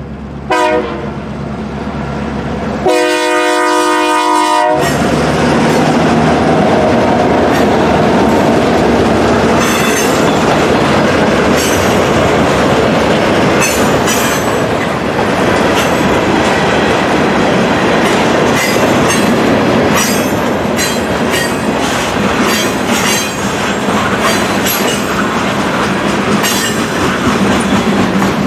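Two EMD GP38-2 diesel locomotives, each with a 16-cylinder two-stroke engine, leading a freight train past. The horn gives a short blast at the start and a longer one about three seconds in. The engines then go by, followed by the freight cars rolling past with a rhythmic clickety-clack of wheels over rail joints.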